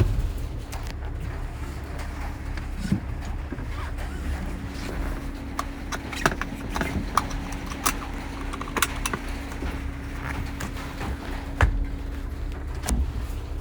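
Inside the cab of a 2020 Ram ProMaster van on the move: a steady low rumble of road and drivetrain noise, with a steady hum that comes in about four seconds in and fades near the end. Scattered sharp clicks and knocks run through it.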